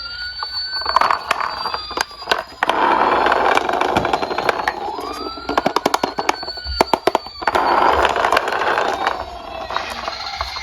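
Wailing emergency siren sweeping up and then easing slowly down, twice, over diecast toy cars rolling and clattering down a slope, with a rapid run of clicks about six seconds in.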